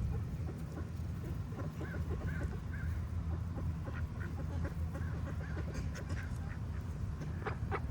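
Ducks quacking in short, scattered calls, with a cluster of louder quacks near the end, over a steady low background rumble.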